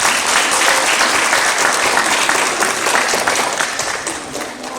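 Audience applauding: dense, loud clapping that slowly thins out near the end.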